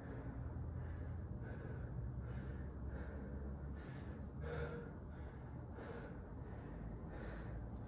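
A person breathing hard and fast after heavy exertion, with a loud breath about every three-quarters of a second, over a steady low hum.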